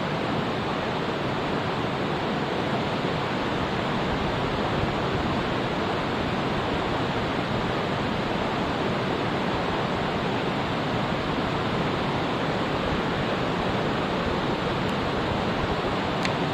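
Mountain stream rushing over rocks: a steady, even rush of water with no change throughout.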